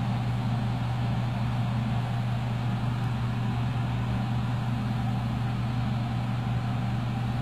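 A steady low machine-like hum with an even background hiss, unchanging throughout.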